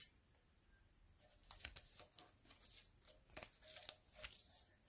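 Faint rustling and light clicks of small craft-store items and their packaging being handled.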